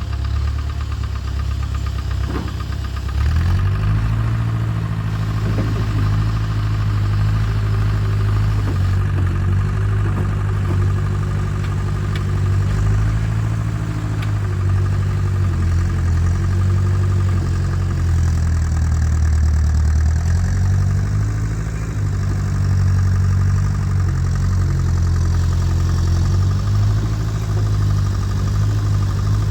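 Diesel engine of an International 3414 backhoe running steadily. Engine speed picks up about three seconds in and sags briefly about two-thirds of the way through before coming back up.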